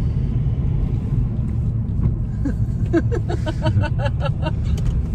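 Steady low road and engine rumble heard from inside a moving car. About three seconds in comes a brief run of quick, short pitched sounds, about five a second.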